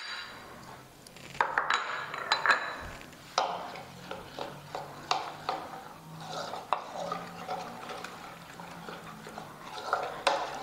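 Metal spoon stirring gram flour into yogurt in a plastic bowl, scraping and clicking against the bowl in irregular strokes.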